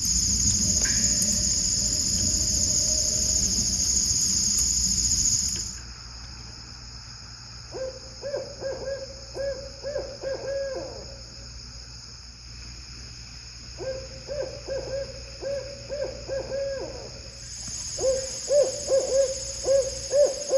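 Owl hooting: three rapid runs of short, evenly spaced hoots, each run lasting about three seconds, the last one the loudest. Before the hoots, a loud steady hiss and hum with a high insect-like shrill runs for the first few seconds and then drops away.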